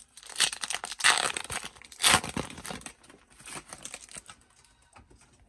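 Foil wrapper of a Topps Star Wars: The Last Jedi Series 2 trading card pack being torn open and crinkled by hand. It is loudest in the first three seconds, then fades to lighter crinkles.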